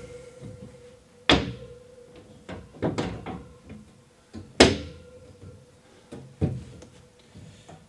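Shelves being set down onto wall-mounted U-brackets: a series of separate sharp knocks and clatters, the loudest a little past halfway.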